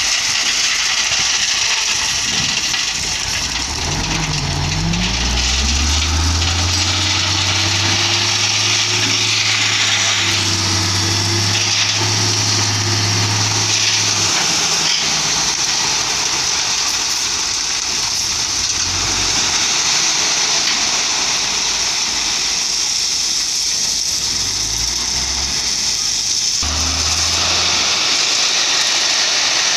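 Hino Ranger dump truck's diesel engine revving up about four seconds in and held at raised revs for about ten seconds, then revving up again briefly near the end, over a constant hissing rush.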